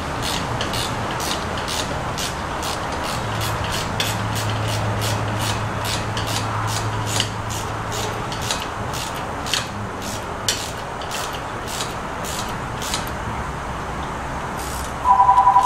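Ratchet wrench tightening the ladder rack's stainless steel hardware down onto the roof tracks: a run of rasping clicks, two or three a second, over a steady shop noise, with a low hum for a few seconds. A loud electronic two-tone beep sounds about a second before the end.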